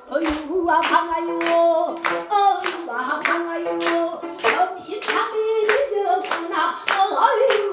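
Singing with steady rhythmic hand clapping along, about three claps a second.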